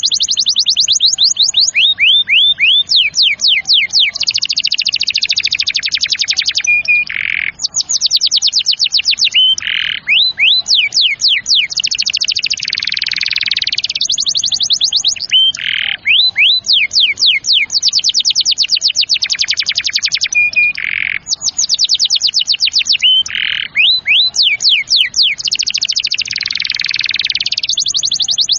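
Canary singing a long, continuous song of fast trills: runs of rapidly repeated sweeping notes, broken every few seconds by short single notes before the next roll begins.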